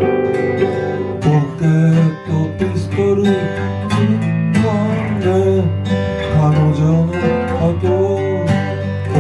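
A band playing a song, led by guitar that is strummed and picked, with some notes bent in pitch.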